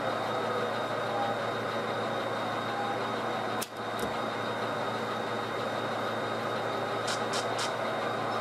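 Sound-equipped HO-scale model diesel locomotives idling, a steady engine hum from their onboard speakers. A single click with a momentary drop in the hum comes a little after three and a half seconds in, and a few faint ticks come near the end.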